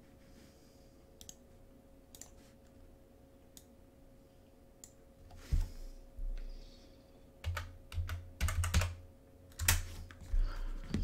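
Computer keyboard typing and mouse clicks: a few scattered clicks at first, then quicker runs of keystrokes with dull knocks from about halfway through, over a faint steady hum.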